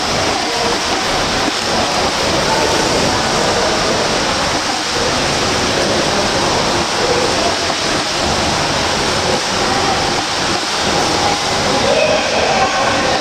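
Swimmers doing front crawl, their arm strokes and kicks making continuous splashing that merges into a steady, loud wash of water noise in an echoing pool hall.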